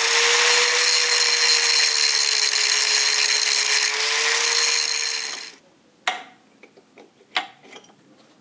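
Electric angle grinder with a grinding stone running steadily against a steel injector sleeve, trimming the protruding sleeve flush with the face of a D-110 tractor engine's cylinder head. It stops about five and a half seconds in and is followed by two short metallic knocks.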